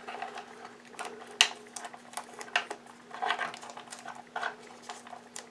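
Irregular light clicks, taps and rustles of hands securing the wires inside an opened Oreck XL vacuum cleaner's housing.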